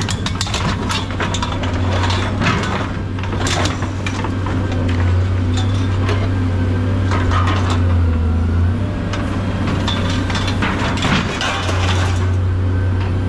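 A steady engine hum from running machinery under irregular clanks, knocks and clatter of scrap metal being handled.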